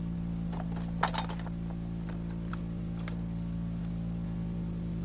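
A few sharp metallic clicks and clacks, the loudest about a second in, from an MG-34 machine gun being loaded with a belt of cartridges, over a steady low hum.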